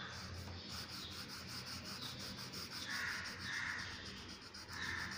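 Blue colouring pencil scratching back and forth on a paper page, in quick even strokes about five or six times a second.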